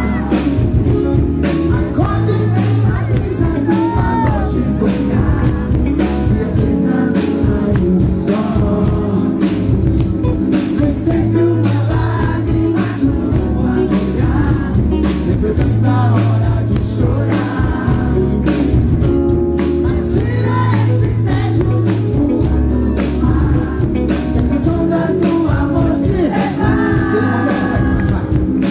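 A live band playing loudly through a PA system: a male singer sings a melody into a microphone over electric guitar, bass and a steady drum beat.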